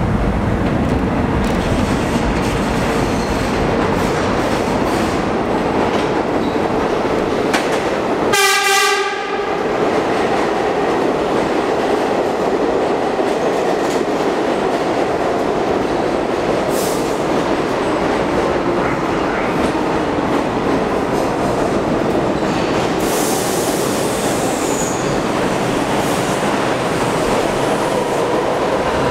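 Vintage New York subway train of R33 and R36 cars pulling into a station. The wheels and motors rumble steadily on the rails, with one short horn blast about eight seconds in, and the train slows to a stop near the end.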